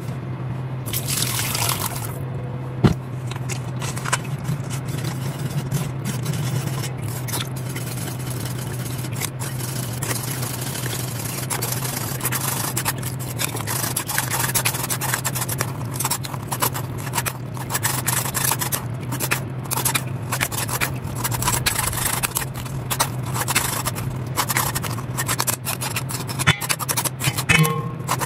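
A spoon scraping and pressing cooked tomato pulp through a fine-mesh metal strainer, in many short, irregular strokes, over a steady low hum.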